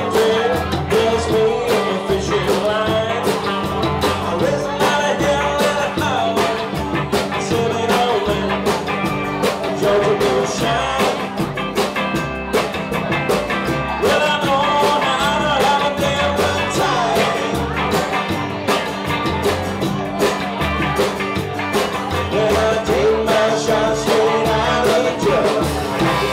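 Live band playing an old-time, jazzy song: upright bass and guitar with a man singing lead, a steady beat throughout.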